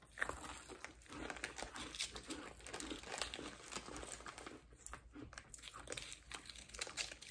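Plastic candy wrapper crinkling as an Airheads taffy bar is handled and unwrapped, along with crunchy chewing of brownie brittle.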